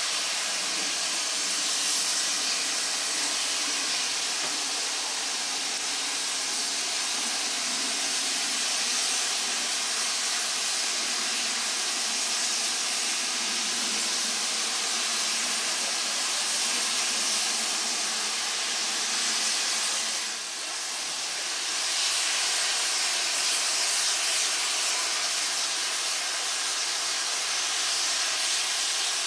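Saddle tank steam locomotive No. 49 standing with its safety valves blowing off: a steady, loud hiss of escaping steam that dips briefly about twenty seconds in.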